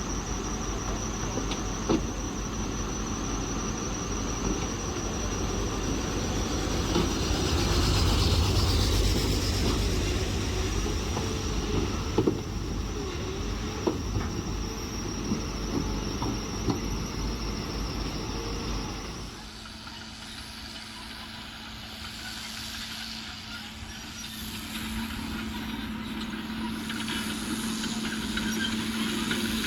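Bulldozer diesel engine running, with a thin high whine and a few sharp metallic knocks; the engine swells for a few seconds, then the sound changes abruptly about two-thirds of the way through to a steadier hum that grows louder near the end.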